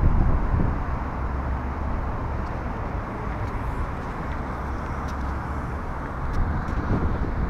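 Wind buffeting the camera's microphone: a steady, gusting low rumble with no let-up.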